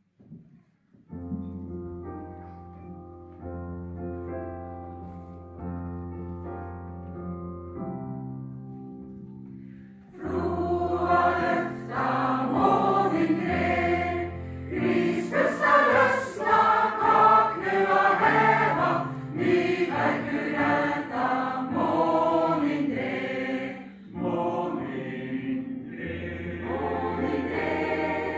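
Mixed choir singing a Norwegian song in dialect, in several parts. They come in about ten seconds in, after a quieter opening of held, sustained notes over a steady low bass.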